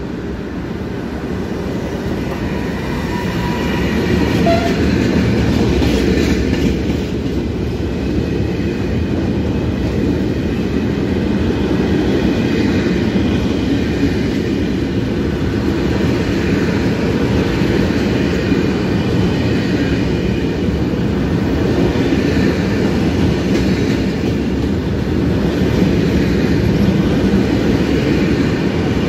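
Freight train passing close by. The E494 electric locomotive goes by, growing louder to a peak about five seconds in, and then a long string of open freight wagons rolls past with steady wheel-on-rail noise.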